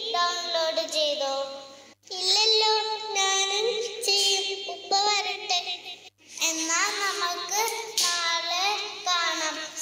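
A child singing a melody in a high voice, with long held notes in three phrases broken by two short pauses.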